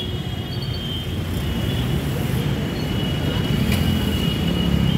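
Road traffic passing close by: a steady low rumble of engines and tyres, with a thin high tone running through it.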